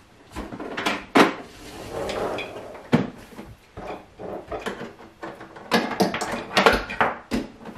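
A heavy Keurig coffee maker on a furniture slider being slid across a kitchen countertop: scraping slides with sharp knocks and clatter as it is handled.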